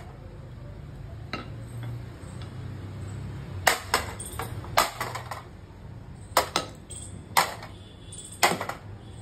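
Claw hammer striking the plastic pieces of a toy coin bank on a stone tile floor: about nine sharp blows at an irregular pace, several in quick pairs.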